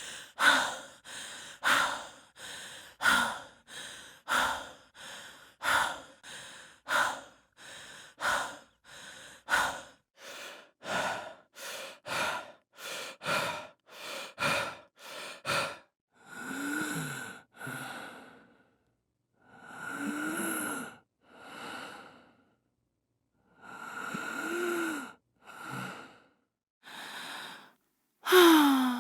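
Heavy human breathing: fast inhale-exhale pairs, about one breath a second, for the first half. Then slower, longer breaths with a wheeze that rises and falls in pitch. A loud wheezing breath with a falling pitch comes near the end.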